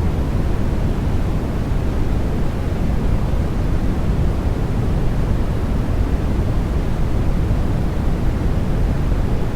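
Continuous synthetic white noise for baby sleep: an even, unbroken rushing hiss, heavier in the low end than in the treble.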